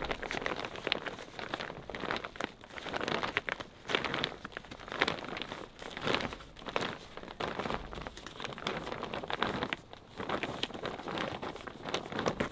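Heavy-duty plastic tarp crinkling and rustling as it is rolled up and pulled over a wooden roof frame, in uneven waves of crackling.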